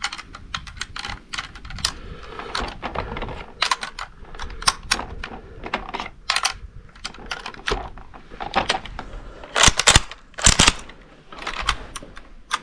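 Irregular metallic clicking and clinking of a rifle and cartridges being handled, with a louder cluster of clicks about ten seconds in.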